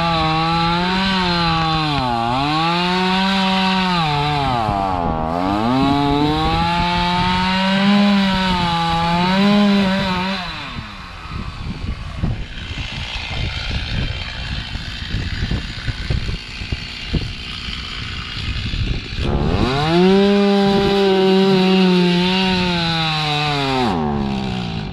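Two-stroke chainsaw running at high revs, its pitch sagging twice under load as it cuts into dry dead pine. It drops to a quieter, rougher sound for about nine seconds, then revs high again and winds down near the end.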